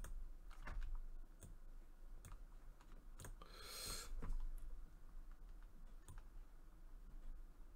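Faint, scattered clicks from a computer mouse and keyboard, with a brief soft hiss a little over three seconds in.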